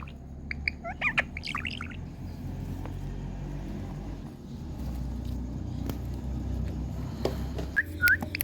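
Indian ringneck parakeet giving a quick run of short chirps and whistles, falling quiet over a low background rumble, then one more short call near the end.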